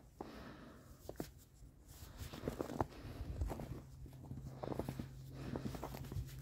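Work gloves with leather palms being pulled onto the hands: irregular rustling and scuffing of the glove material and jacket sleeves, with small clicks. A low steady hum joins about four seconds in.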